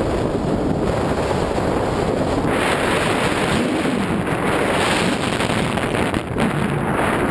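Wind rushing over the microphone of a pilot-mounted camera during a paraglider flight, a steady roar of air that grows stronger and brighter about two and a half seconds in.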